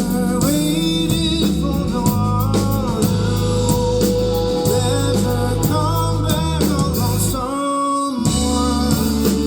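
Rock band playing live: guitar, bass and drum kit with singing. The bass and drums stop for a moment about eight seconds in, then come back in.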